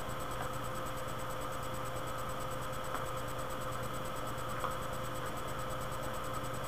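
Steady hiss with constant high whining tones and a low electrical hum. A faint click comes about four and a half seconds in.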